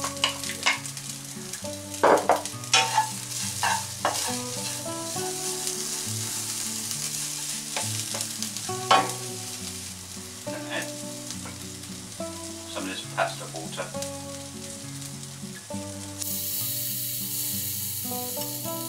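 Strips of Parma ham sizzling as they fry in a frying pan, being crisped, with scattered scrapes and taps of stirring.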